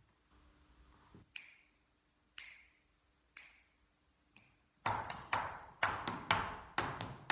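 Four sharp clicks about a second apart, then from about five seconds in a quick run of sean nós dance steps: hard-soled shoes tapping and striking the floor in reel time.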